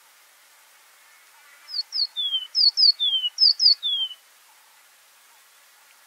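Golden-breasted bunting singing one short phrase of clear whistled notes, each slurring downward: three repeats of two quick high notes followed by a lower falling note, starting a couple of seconds in and lasting about two and a half seconds.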